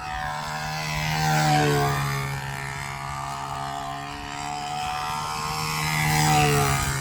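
The motor and propeller of a round-the-pole model aircraft run steadily as it circles the pole. The drone swells and its pitch bends twice as the model sweeps past, about a second and a half in and again near the end.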